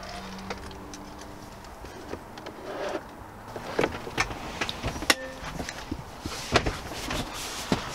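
Clicks and knocks from a Bentley's cabin trim being handled: the spring-loaded door pocket lid flapping open and the front seat pushed forward, with a faint hum for the first couple of seconds.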